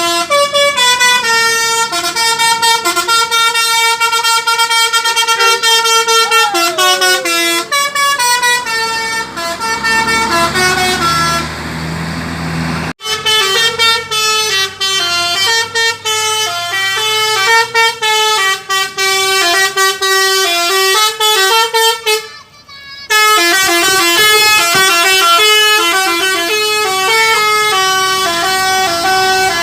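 Telolet basuri, a multi-tone musical bus air horn, playing a tune in quick stepped notes. The tune breaks off briefly twice, about thirteen seconds in and again around twenty-three seconds in.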